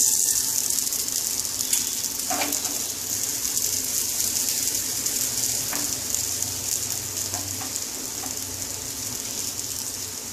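Dosa batter sizzling in freshly added oil on a hot frying pan: a steady high hiss, loudest at first and slowly easing as the first side fries, with a few faint ticks.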